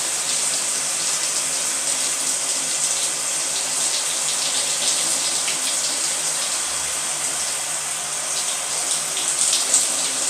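Shower running, its water spraying and splattering steadily, with a few sharper splashes near the end as water hits a circuit board being rinsed.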